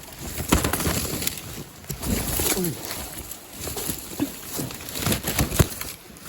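Footsteps and scrambling on a steep slope: irregular crunching and scraping with many sharp clicks and knocks.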